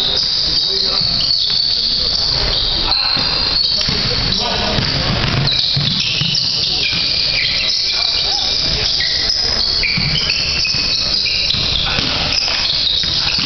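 Basketball sneakers squeaking again and again on a hardwood gym floor as players cut and stop, with dull thuds of a basketball bouncing.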